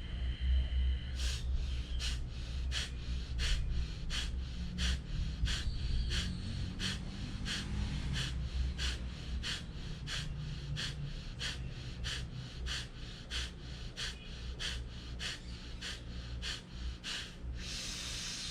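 Kapalbhati breathing: a long series of short, forceful exhalations through the nose, about two to three puffs a second, evenly paced. Near the end comes one longer, deeper breath.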